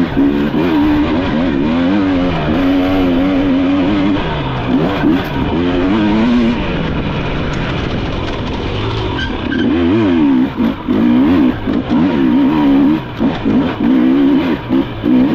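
Off-road racing motorcycle engine revving hard, its pitch rising and falling quickly with the throttle. About two-thirds of the way through it eases off for a few seconds, then comes back in short on-off bursts.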